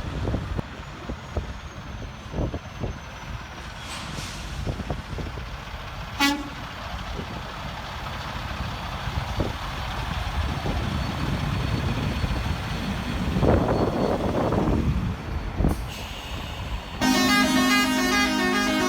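Highway traffic rushing past with trucks going by, one swelling louder about thirteen seconds in. Near the end a loud truck horn chord starts suddenly and holds steady.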